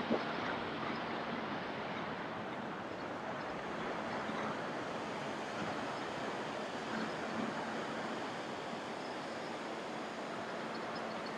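Steady rushing of surf and wind, with a faint steady hum underneath and a short knock right at the start.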